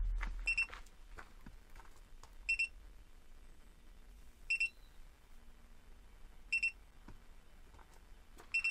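Haloview BT7 rear-view monitor's tire-pressure alarm: a high electronic double beep repeating every two seconds, five times. It signals zero pressure and a fast leak on the front driver's side tire, whose pressure sensor has been removed.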